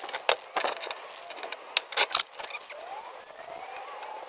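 Aerosol spray-paint can hissing in several short spurts, each well under a second long.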